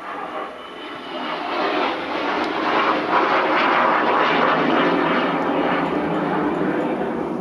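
A ragdoll cat grooming right against the microphone: a loud, rough rustling and rasping of tongue and fur that builds over the first few seconds, holds, and eases near the end.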